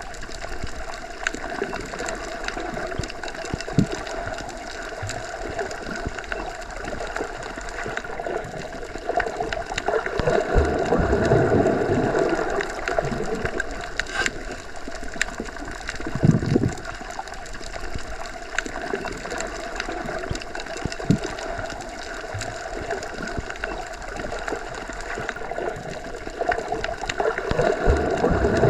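Underwater ambience: a steady, muffled wash of moving water. It swells twice, around the middle and again near the end, with scattered low thumps and small clicks, one thump standing out about two thirds of the way in.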